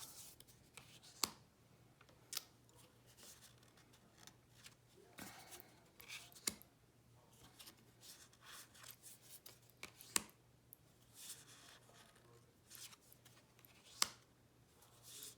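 Tarot cards being handled and flipped through one at a time: faint sliding rustles with about five sharp card clicks spread out.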